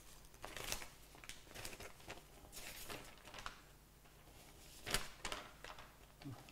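Faint rustling and handling of sheets of paper, with a sharper crinkle about five seconds in.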